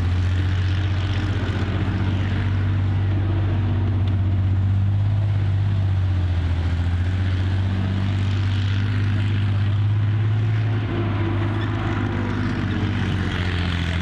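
Large vehicle engine running steadily at low revs, a deep even drone.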